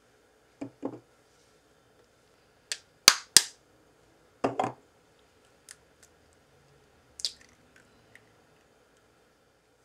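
Eggs being cracked by hand: a series of sharp cracks and clicks of eggshell, with the loudest double crack about three seconds in, then lighter clicks as the shell is broken open and the yolk is separated.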